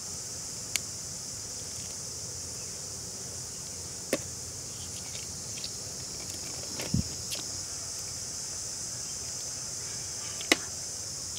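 A steady high-pitched chorus of insects, with a few short sharp clicks and taps about a second in, around four seconds, around seven seconds, and near the end.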